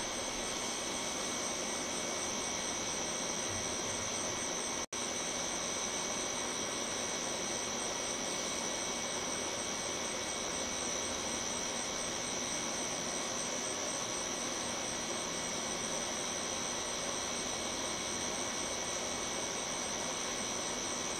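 Steady night-time background hiss with a constant high-pitched tone running through it, and no thunder heard from the lightning. The sound drops out for an instant about five seconds in.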